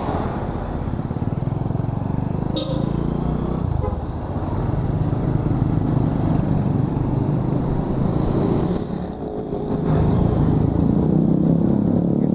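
Motorcycle engine running steadily on the move, with wind rushing over the microphone; a short click a couple of seconds in.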